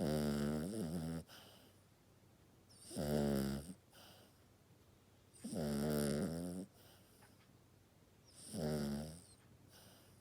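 Toy poodle snoring, with deep, croaking, bullfrog-like snores. Four snores in a slow rhythm, one every two to three seconds, each lasting up to about a second, with quiet gaps between.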